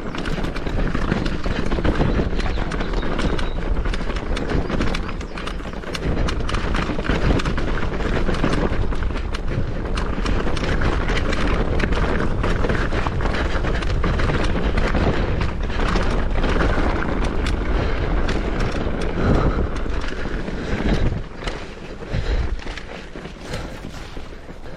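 Mountain bike riding down a rough trail: tyres running over rock and gravel with a constant clatter of quick knocks and rattles.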